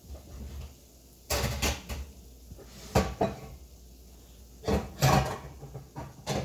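Kitchen cupboard and cookware knocks and clatters in three short bursts, about one and a half, three and five seconds in, as someone rummages for a pot lid.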